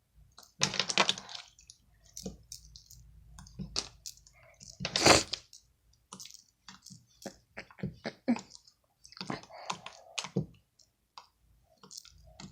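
Homemade slime being kneaded and worked with the fingers after perfume was added, giving irregular sticky clicks and squelches, with a louder burst about five seconds in.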